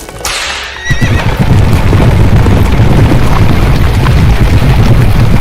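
A horse whinnies briefly near the start, then a loud, dense low rumble sets in about a second in and holds.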